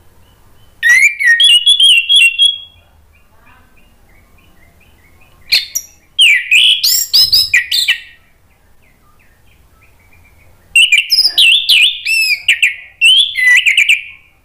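Orange-headed thrush singing loudly in full song: three bursts of rapid, varied whistled phrases, each a couple of seconds long, with faint soft notes in the pauses between.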